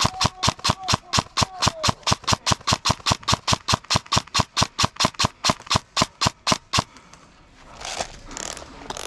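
Airsoft gun firing a long steady string of shots, about six a second, with a faint mechanism whine between them. The firing stops about seven seconds in.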